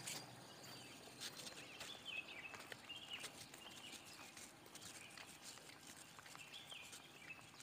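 Faint footsteps on a paved road, with small birds chirping now and then in short high calls every second or so.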